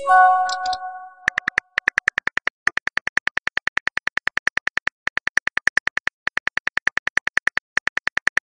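A short chime of an incoming text message, then a rapid run of smartphone on-screen keyboard clicks, several a second with a few brief pauses, as a message is typed.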